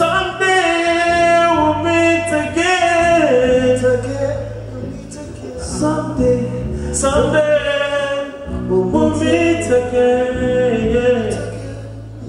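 Live music: several men singing into microphones over a band with bass and guitar, in two long sung phrases with held notes, the second starting about six seconds in.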